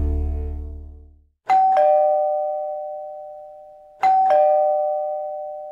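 Two-tone ding-dong doorbell chime, a higher note then a lower one, struck twice about two and a half seconds apart, each ringing out slowly. Background music fades out just before the first chime.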